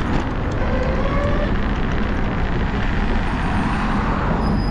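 Wind buffeting the action camera's microphone, with tyre rumble over brick paving, while riding an electric scooter at about 15 km/h. The noise is steady and loud.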